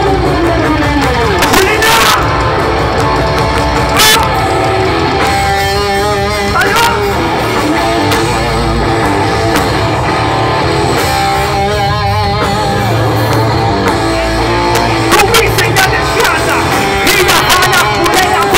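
Loud live rock music from a band on stage with electric guitars, recorded from within the crowd. There are a few sharp hits near the start and a run of fast, even hits near the end.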